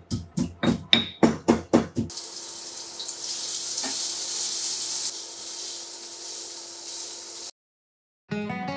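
Granite mortar and pestle pounding red chilies, about eight quick strokes at roughly four a second. Then chili paste sizzling in hot oil in a nonstick frying pan as it is stirred, a steady hiss that stops abruptly. After a moment of silence, acoustic guitar music starts near the end.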